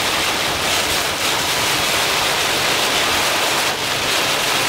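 Steady rushing wind noise on the microphone of a moving motorbike, with a faint low engine hum underneath.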